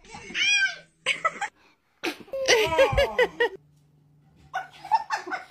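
A young child squealing, then giggling in quick repeated bursts.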